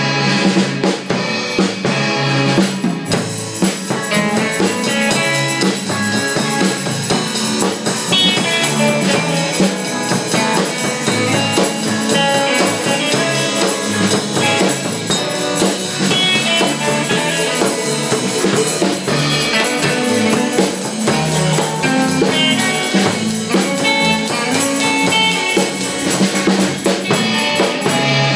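Live band playing a rock song: a drum kit keeps the beat under two electric guitars.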